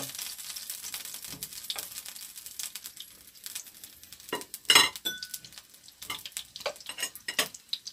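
Frank sausages sizzling in a frying pan, a steady fine crackle, with clicks and scrapes of metal tongs against the pan as they are turned. A louder metal clack about halfway through, followed by a brief ring.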